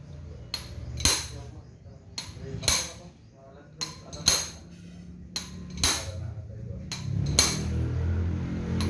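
Irregular sharp metal-on-metal taps and clinks, about ten of them, each with a short ringing tail, like tools striking and being set down on metal parts during chainsaw engine work.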